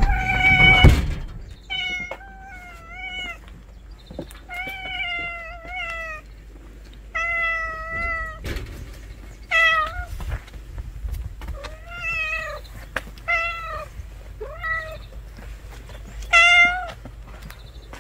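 A cat meowing over and over, about a dozen drawn-out meows with a wavering pitch, spaced a second or so apart. A brief loud low rumble comes at the very start.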